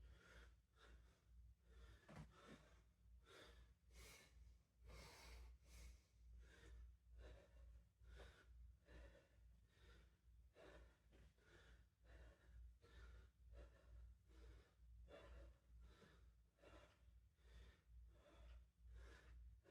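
A man breathing hard in a steady, quick rhythm while doing kettlebell swings. The sound is faint.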